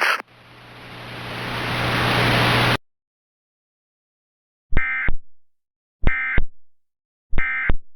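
Static hiss with a low hum swells louder for nearly three seconds and cuts off abruptly. After a short silence come three brief, harsh Emergency Alert System data bursts about a second and a half apart: the end-of-message tones that close the alert.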